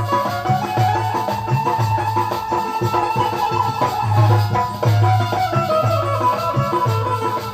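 Instrumental interlude of Bundeli Rai folk music: a drum beating a steady rhythm with shaken rattle-like percussion, under a held, wavering melody line.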